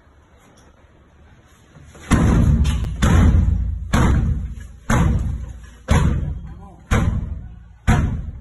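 Heavy thuds of officers kicking a wooden door that will not give way: about eight blows, roughly one a second, starting about two seconds in, each ringing out briefly.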